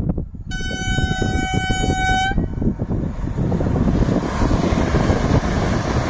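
Electric multiple unit passenger train sounding one steady horn blast of nearly two seconds about half a second in, then rushing past close by, its running noise growing louder after the horn stops.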